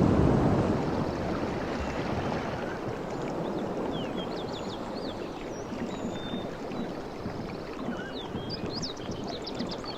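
Waves washing onto a beach: a wave surges loudly at the start and falls away within about a second into a steady wash of water. Short high chirps join from about four seconds in, thickest near the end.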